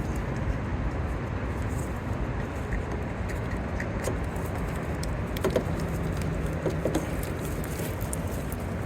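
Steady low background rumble with a few faint, short clicks and knocks scattered through it.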